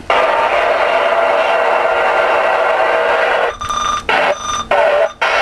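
CB radio static: a steady loud hiss from the radio's speaker. About three and a half seconds in, it breaks twice briefly, with short beeping tones in the breaks, then the hiss comes back.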